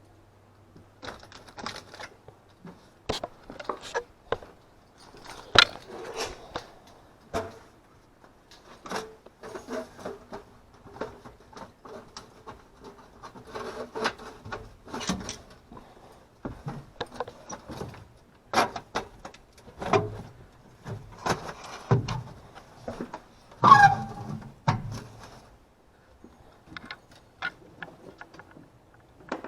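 Irregular clicks, knocks and rattles of small hard objects being handled, with a louder clatter near the end.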